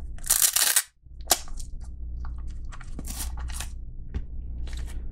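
Handling noise from a Kizer Begleiter Mini folding knife being unpacked and taken in hand: a short noisy burst near the start, then several sharp clicks and snaps.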